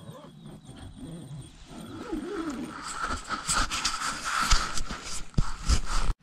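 Close handling noise: the camera's microphone rubbing and knocking against a camouflage jacket as the camera is moved, a rustling scrape with frequent bumps that grows louder and cuts off suddenly near the end.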